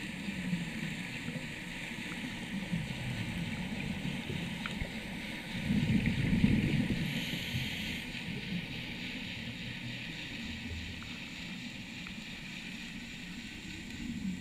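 Muffled underwater noise heard through a camera's waterproof housing: a low rumble and gurgle with a faint hiss, swelling louder for a couple of seconds about six seconds in.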